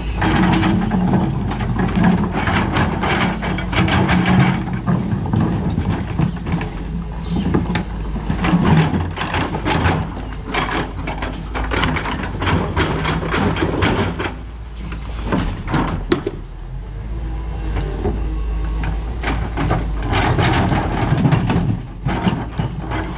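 Doosan DX225LCA excavator working: its diesel engine hums steadily under load while a dense run of metallic clanks and rattles from the machine and its bucket load goes on throughout, easing off for a few seconds past the middle.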